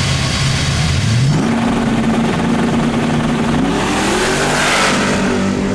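Drag-racing muscle car engine revving at the start line: the note climbs about a second in and holds at a steady higher pitch, then rises again near the end with a rush of hiss as the car pulls away.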